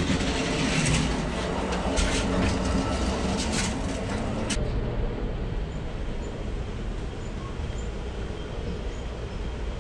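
Moving passenger train running, heard from on board: loud rumble with rattling clatter while passing through the door between cars. About four and a half seconds in, the clatter and hiss cut off, leaving a quieter steady rumble inside the dining car.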